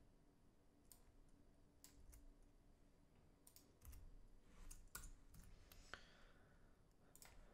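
Faint, irregular clicks of a computer mouse and keyboard, about ten in all, while text is copied, pasted and selected.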